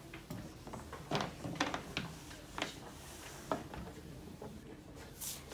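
Small wooden building blocks clicking and knocking against each other and the tabletop as they are picked up and set down, in short, irregular clicks.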